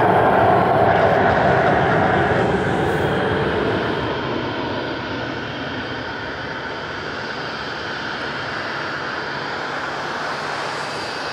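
Gulfstream II business jet's two Rolls-Royce Spey turbofans at takeoff-climb power, a loud rushing jet noise heard from behind as the jet climbs away. It fades over the first few seconds, then holds at a lower, steady level.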